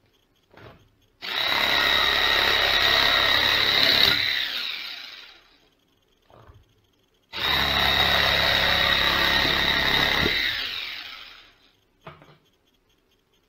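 Bosch jigsaw converted to cordless, with an 18-volt DC drill motor and drill lithium-ion battery, run twice. Each run starts suddenly at full speed with a steady whine, holds for about three seconds, then winds down over about a second. Small handling clicks come between the runs.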